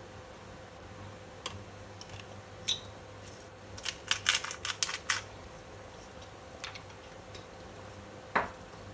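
Black pepper being added over a cream sauce: a rapid run of sharp clicks from the pepper container about four seconds in, over a steady low hum, with a single loud knock near the end.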